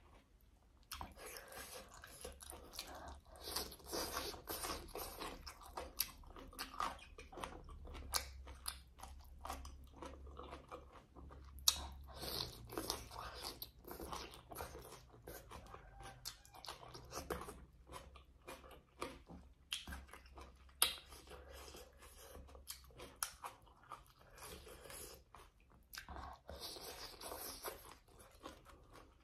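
Close-miked chewing and crunching of papaya salad with seafood and raw greens, heard as a dense run of short crisp crunches and wet mouth clicks.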